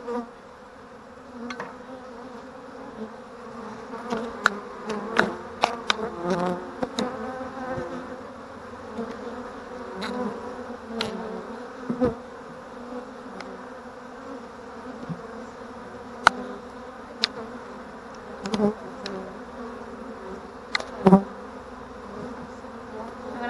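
Honey bees buzzing around an open hive: a steady hum. Irregular sharp clicks and knocks of wooden hive parts being lifted and handled come over the hum, clustered in a few spells.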